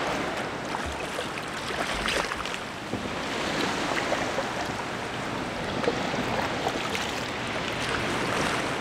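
Ocean water splashing and sloshing around a sea kayak as it is paddled, over a steady wash of surf.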